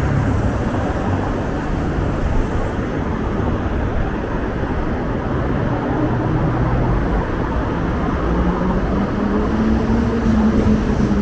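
Steady city street traffic noise: motor vehicles running and passing, with a low engine hum that drifts in pitch.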